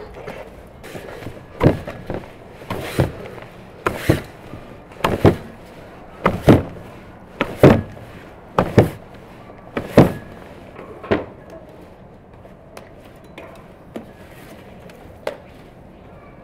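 Bread dough being slapped and pressed into an enamel basin while kneading: dull thuds, mostly in quick pairs about once a second, stopping about two-thirds of the way through.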